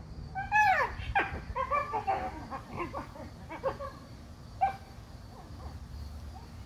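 Dogs play-wrestling, with a string of yowls and whines that slide down in pitch, thickest in the first four seconds, then one short yip a little after four and a half seconds in.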